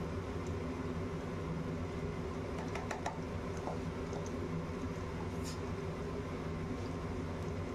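Sliced onions sizzling gently in hot mustard oil in a kadhai, with a few fine crackles, over a steady low hum.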